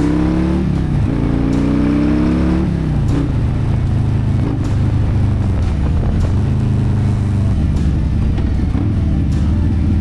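Harley-Davidson Low Rider ST's Milwaukee-Eight 117 V-twin pulling away under throttle, its pitch rising and then dropping at two upshifts, about a second in and near three seconds. After that it runs steadily at a lower pitch while cruising.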